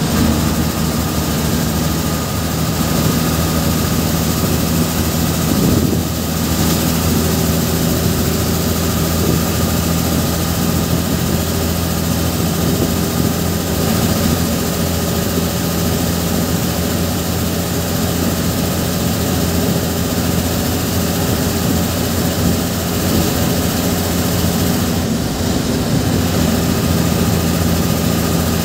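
A bus's diesel engine running steadily at road speed, heard from inside the cab, with a steady hum over road and wind noise.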